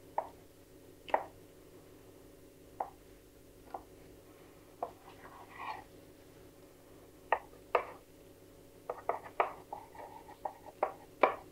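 Large kitchen knife cutting lengthwise through a rolled, filled yeast dough on a stone countertop. The blade clicks and taps on the stone now and then, sparse at first and coming quicker over the last few seconds.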